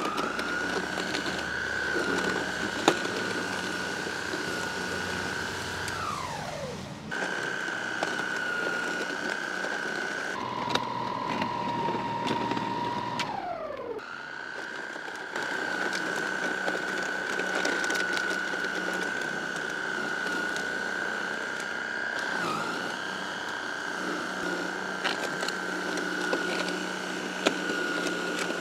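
Einhell GE-ST 36/40 Li cordless snow thrower, its brushless motor driving the auger, running with a steady high whine while clearing wet snow. Twice the whine falls in pitch as the machine winds down and stops, then it starts again. For a few seconds before the second stop it runs at a lower pitch, and about two-thirds of the way through the pitch dips briefly.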